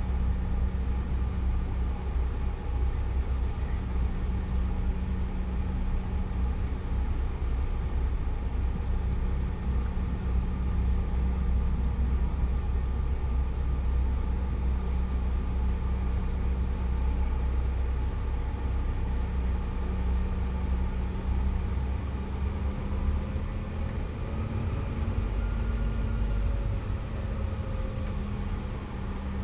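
Steady low rumble and engine hum inside the cabin of a Bombardier CRJ900 regional jet, from its rear-mounted GE CF34 turbofans. The engine tone shifts slightly upward in pitch about two-thirds of the way through.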